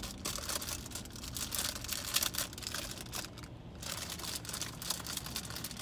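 Crinkling and rustling of something crinkly handled close to the microphone, a dense run of small irregular crackles with a brief pause about three and a half seconds in.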